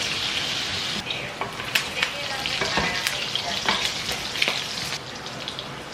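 Pork pieces sizzling in a pan as their fat renders out, with a utensil stirring them and clicking against the pan now and then.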